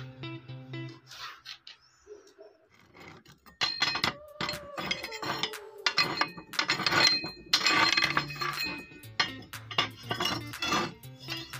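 Cast-iron stove-top rings clinking and clanking as they are pried up and lifted off with a metal poker hook, starting about three and a half seconds in, over background music.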